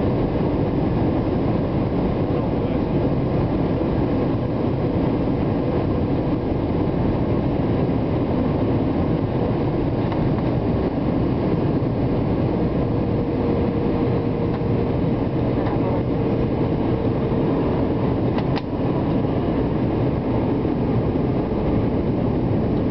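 Steady cabin noise inside a Boeing 757 on approach, the engine and airflow rumble heard from a window seat over the wing. A faint steady hum joins about halfway through, and there is one short click about four-fifths of the way in.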